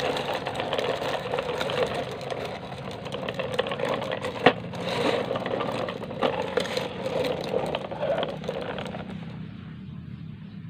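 A plastic toy dump truck pushed across a rough concrete floor, its wheels grinding and rattling, with one sharp knock about four and a half seconds in. The rattle stops about a second before the end, leaving a quieter low hum.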